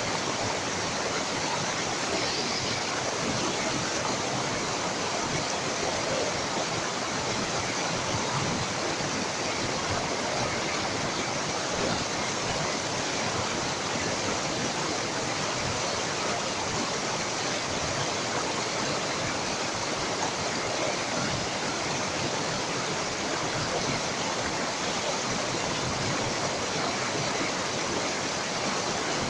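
Shallow mountain stream rushing over and between boulders: a steady, unbroken rush of water.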